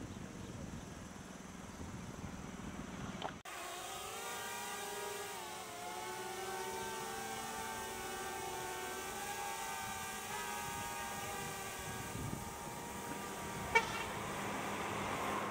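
Small quadcopter drone's propellers buzzing, a whine of several steady pitches that dip and shift slightly as the motors change speed. It starts abruptly about three seconds in, after a stretch of plain outdoor hiss, and there is one sharp click near the end.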